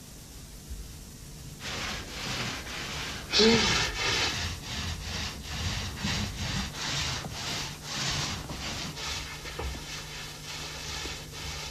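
Paint rollers rubbing up and down a wall in quick repeated strokes, about three a second, starting about two seconds in, with one louder stroke about three and a half seconds in.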